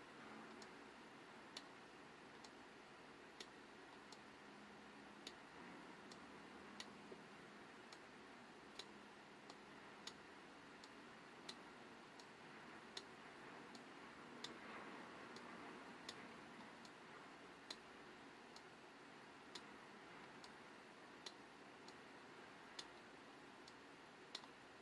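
Faint sharp ticks, roughly once a second and not quite evenly spaced, over a low steady hiss.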